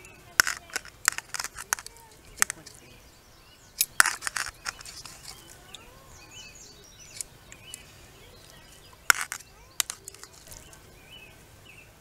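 Metal kitchen tongs clicking and clacking against an aluminium foil pie plate in three short bursts of clicks while chicken breasts are lifted out. Birds chirp faintly in the background.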